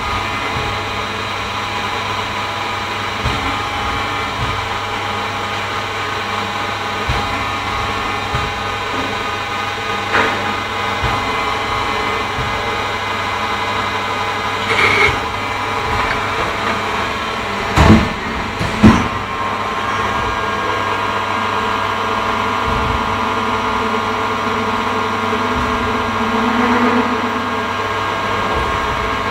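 Machinery running steadily with a constant hum and several steady tones, broken by a few short knocks, the two loudest close together about two-thirds of the way through.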